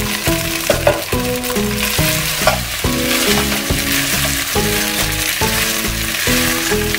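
Leftover rice sizzling as it fries in hot oil with garlic in a pan, being stirred and broken up, over background music.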